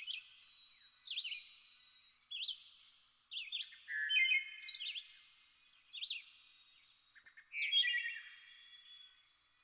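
Songbirds chirping and singing: short sweeping calls and trills about once a second, with a thin high whistle held in the background.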